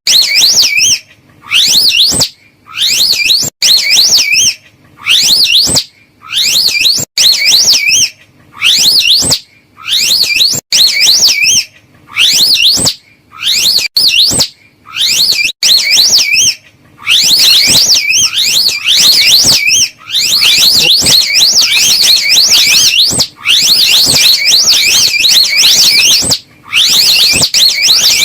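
Slow loris call: rapid high warbling trills, the pitch swinging quickly up and down, repeated in phrases of about a second with short gaps. After about 17 s the phrases run together with only a couple of brief breaks.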